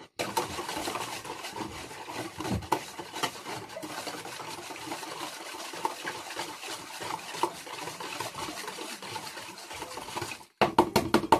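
Milk with yeast, sugar and salt being stirred in a bowl to dissolve the sugar: a continuous scraping with light clinks of the utensil against the bowl. Near the end, after a brief pause, comes a quick run of sharp taps.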